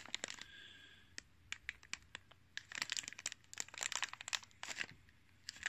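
Unboxing packaging handled by hand: irregular crinkling and rustling with small clicks and taps, coming in several short flurries.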